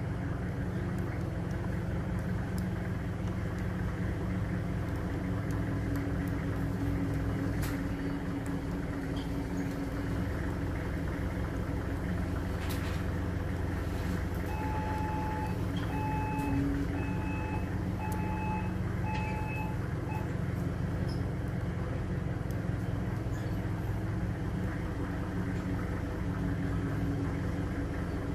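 Forklift engine running steadily as the truck works close by. About halfway through, its warning beeper sounds a short run of about six evenly spaced beeps.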